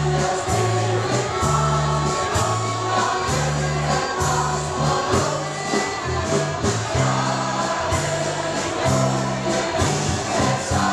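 Mixed choir of men and women singing a Dutch song with a live band: a bass line stepping from note to note and a drum kit keeping a steady beat with regular cymbal hits.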